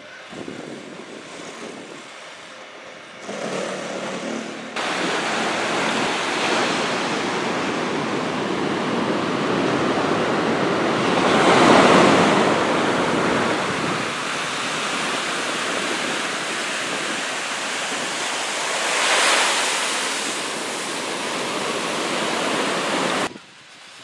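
Ocean surf breaking and washing up on a sandy beach: a steady rush that swells as waves crash, loudest about halfway through and again later on. It comes in abruptly a few seconds in, after a quieter stretch of outdoor ambience.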